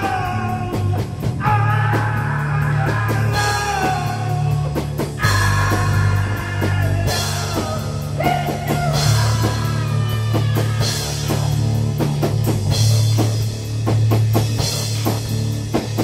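Rock music with a drum kit beat and guitar: the closing theme music.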